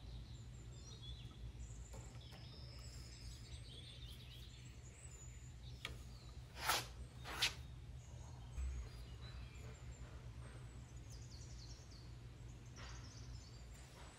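Faint birds chirping over a steady low background hum. About halfway through come two short, sharp noises close together, the loudest sounds here, then a dull thump.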